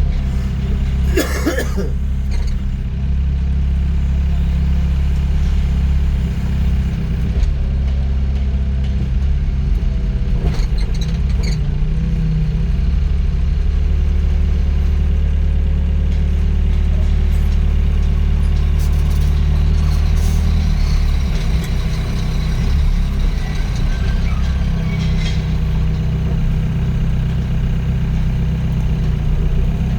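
Doosan DX55 mini excavator's diesel engine running steadily while the machine works, with a short sharp clank about a second in. The low engine note eases a little about two-thirds of the way through.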